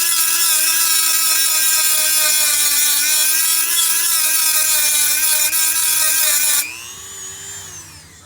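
A small high-speed power cutting tool runs at a steady high whine, cutting away an old rivet head. About six and a half seconds in it is switched off and its pitch falls away as it winds down.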